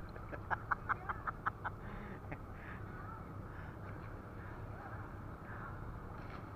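Faint slosh of seawater around a camera at the surface among purse-seine floats, with a quick run of about seven short sharp sounds in the first second and a half.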